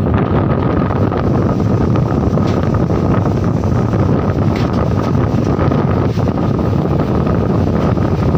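Strong wind blasting across the microphone: a loud, steady low rumble.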